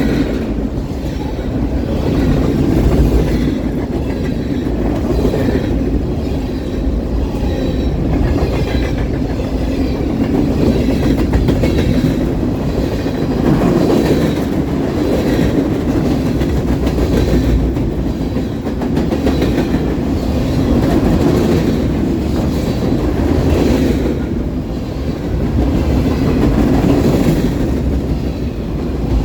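Freight train cars rolling past, with a steady rumble and the clickety-clack of wheels over rail joints, swelling and fading as each car goes by. Strong wind buffets the microphone.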